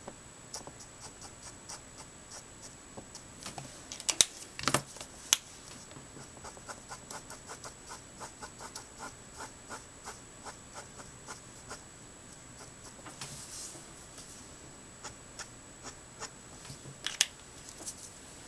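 Alcohol-based Promarker nib stroking over cardstock in short quick flicks, a faint scratchy tick about two or three times a second. A few louder clicks come about four to five seconds in and again near the end, over a faint steady high whine.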